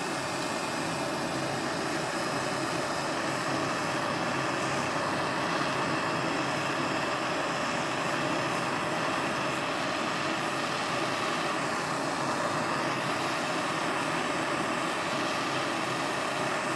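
Gas soldering torch flame burning steadily with an even rushing noise while it heats a large silver belt buckle for soldering.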